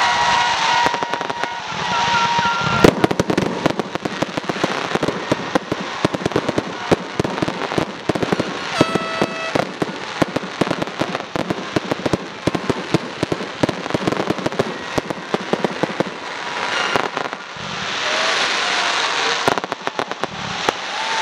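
Fireworks display. It opens with the hiss of a ground fountain carrying a whistling tone, then comes a loud bang about three seconds in and a long stretch of dense crackling from crackle-star shells. The fountain hiss returns near the end.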